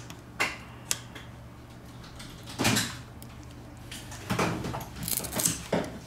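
Small plastic clicks and scrapes as a phone's loudspeaker module is pried out of its plastic frame with a plastic opening tool: a couple of sharp clicks at first, a longer scrape a little after two and a half seconds, then a cluster of clicks and rustling from about four to five and a half seconds.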